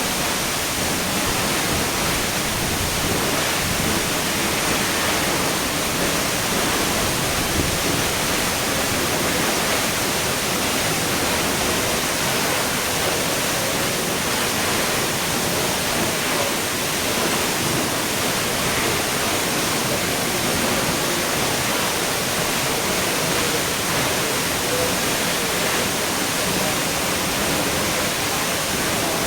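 Waterfall rushing: a steady, dense wash of falling water that holds level without a break.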